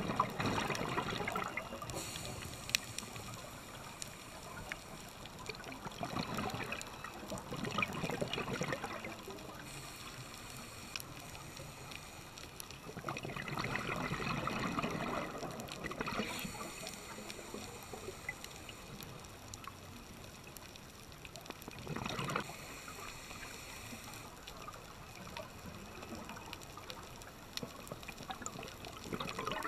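Scuba diver's regulator breathing heard underwater: a bubbling rush of exhaled air swells up about every seven seconds and lasts a second or two, with quieter hiss and faint clicks in between.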